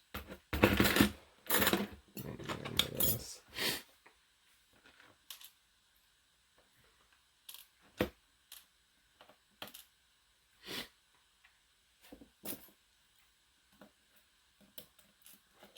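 Master Lock M530 padlock being taken apart by hand, metal parts clattering and scraping for the first few seconds, then scattered light clicks.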